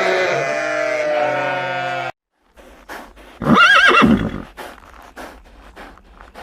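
A long, steady animal call that cuts off abruptly about two seconds in. After a short silence a horse whinnies once, a loud call of about a second with a quavering, wavering pitch, followed by faint scattered clicks.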